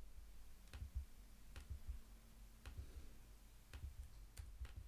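Faint computer mouse clicks, spaced irregularly about a second apart, as notes are drawn into a piano roll.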